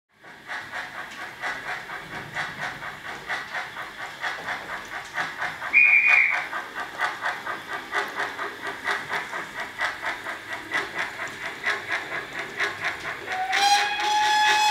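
Steam locomotive sound: steady rhythmic chuffing at about two to three beats a second, with a short whistle blast about six seconds in. Near the end a steady held tone starts.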